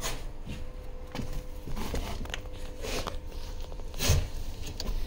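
Scattered light clicks and knocks of handling, with a stronger knock about four seconds in, over a steady faint hum.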